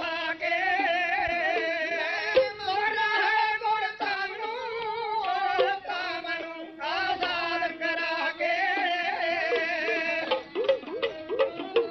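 Punjabi dhadi music: a sung, wavering melody with bowed-string accompaniment over a steady drone. Near the end the melody gives way to quick, evenly spaced beats, about three a second.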